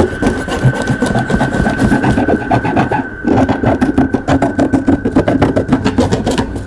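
A large knife sawing through packing tape and cardboard on a box top, in rapid back-and-forth rasping strokes that pause briefly about three seconds in.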